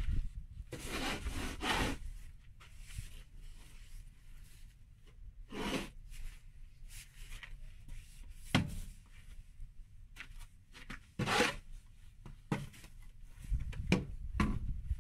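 Short crunching scrapes in snow, coming one at a time every second or few, over a low rumble of wind on the microphone.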